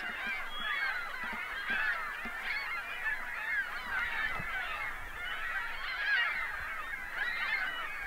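A large flock of geese calling in flight, many honks overlapping without a break.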